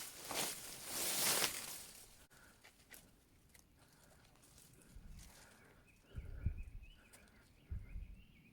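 Footsteps on a mountain trail, loud and uneven for the first two seconds, then fading to a few soft thuds. A bird calls faintly and wavers in pitch through the second half.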